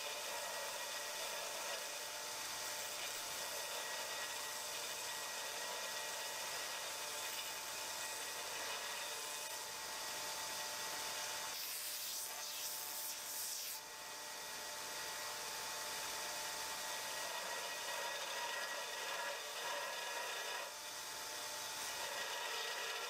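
Belt grinder grinding a piece of 1084 high-carbon steel against its contact wheel: a steady grinding hiss over a steady motor whine. About twelve seconds in it turns brighter and harsher for a couple of seconds, and it dips briefly twice.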